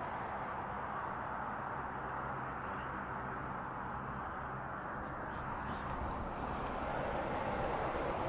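Steady rush of road traffic crossing the concrete road bridge overhead, swelling slightly near the end, with a few faint bird chirps.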